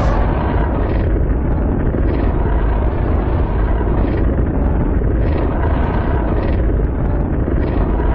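Loud, continuous Mega Godzilla monster sound effect: a heavy mechanical rumble with surges of hissing noise less than a second apart.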